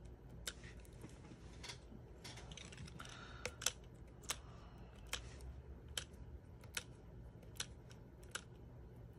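Faint, irregular small clicks and taps, about one or two a second, as a pen-style Take Your Pick craft tool picks mini foam adhesive dots off their backing sheet and presses them onto card stock.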